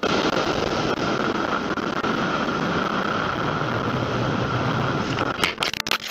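Motorcycle riding along, with a steady rush of wind and engine noise on the bike-mounted camera. Near the end there are a few sharp knocks as the bike goes down.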